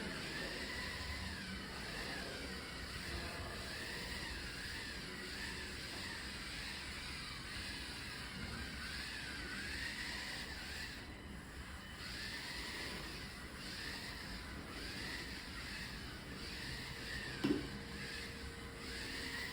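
Small RC car's electric drive motors whining as it drives itself, the pitch rising and falling over and over as its speed changes. There is one short knock near the end.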